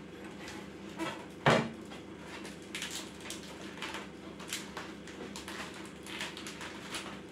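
A single sharp knock about one and a half seconds in as a kitchen knife is set down on the wooden tabletop, followed by soft crisp rustling and crackling as hands gather and stack raw cabbage leaves.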